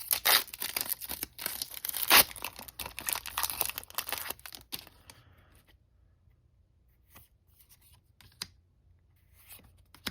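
Foil booster-pack wrapper of a Japanese Pokémon card pack being torn open and crinkled, loudest about two seconds in. After about five seconds it gives way to a few soft clicks of the cards being handled.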